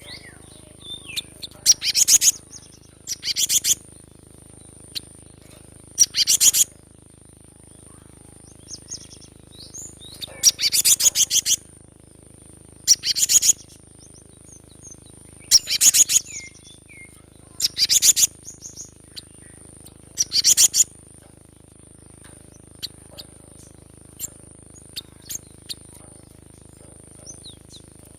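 Cinereous tit (gelatik batu) calling: short bursts of rapid, high chattering notes, repeated about every two seconds. The bursts stop about three-quarters of the way through, leaving only a few faint ticks.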